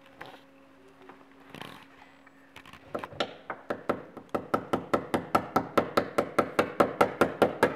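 Fast, steady taps driving nails to fasten a cable to a wooden floorboard, starting about two and a half seconds in at about four to five blows a second and growing louder.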